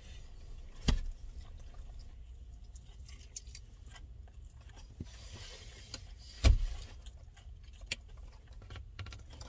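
Low steady rumble of a car's cabin, with two sharp knocks: one about a second in and a louder one about six and a half seconds in. Faint clicks fall in between.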